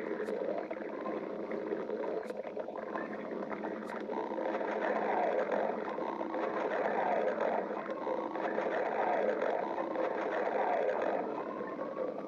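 A person's stomach growling: a long, continuous rumble that wavers in pitch and grows louder about four seconds in.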